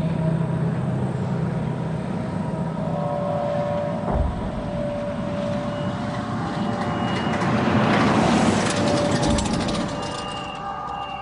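A motor vehicle passing on the road, its noise building to loudest about eight seconds in and then fading, over a steady low hum.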